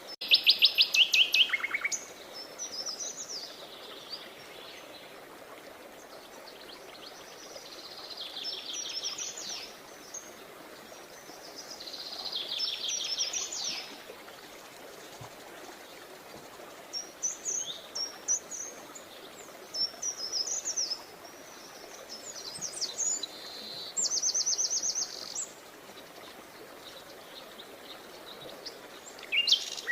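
Songbirds singing in short phrases of high, rapidly repeated notes. The loudest trills come at the start and again near the end, with quieter trills and twitters every few seconds between them, over a faint steady hiss.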